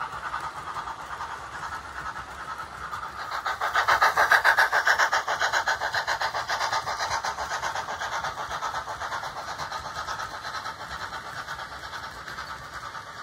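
OO-scale model train running past on its track: a fast, rhythmic clatter of wheels and running gear, loudest about four seconds in as the coaches pass close, then slowly fading.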